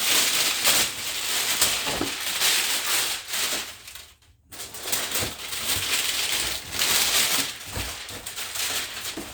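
Rustling and crinkling of cardboard and plastic packaging being handled, with scattered clicks and knocks. It breaks off briefly about four seconds in, then resumes.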